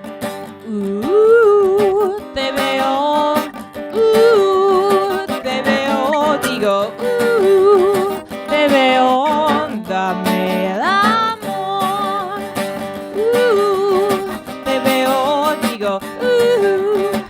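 A woman singing over a strummed acoustic guitar, her melody sliding and wavering in pitch.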